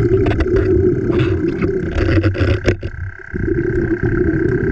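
A motor running steadily with a constant whine, overlaid by scattered clicks and knocks; it drops out briefly about three seconds in, then resumes.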